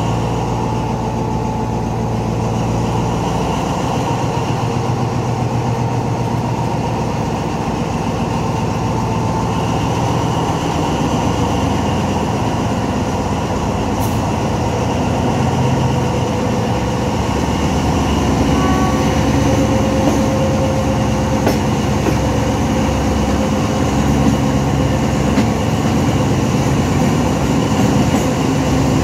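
Alsthom diesel locomotive's engine working under power as it hauls the train, heard from just behind the locomotive over the running noise of wheels on rail. The engine note shifts several times and gets a little louder in the second half.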